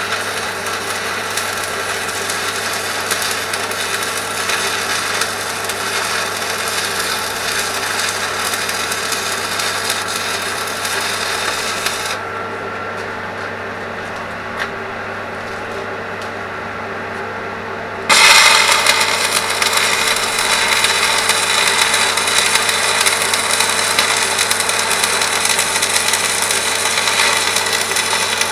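Electric angle grinder cleaning up welds on a steel mini digger bucket, running steadily against the metal. About twelve seconds in, the high grinding hiss drops away for around six seconds, then comes back louder.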